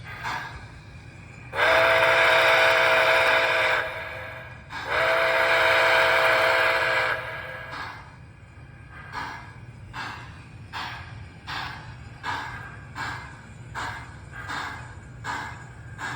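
MTH Nickel Plate Road 765 model steam locomotive's sound system blowing two long chime-whistle blasts, each about two seconds, followed by slow, even steam chuffs at about four every three seconds.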